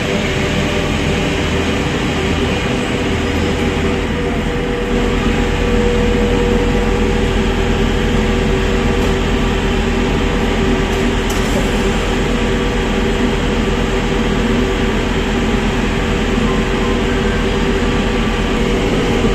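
Steady machine hum of an RER E double-decker train standing at the platform with its doors open, with a few fixed tones in it.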